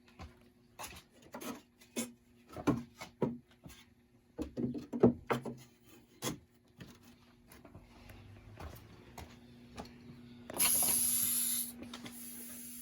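Wooden boards knocking and scraping together as they are handled and set in place, a run of irregular knocks, followed near the end by a hiss lasting about a second.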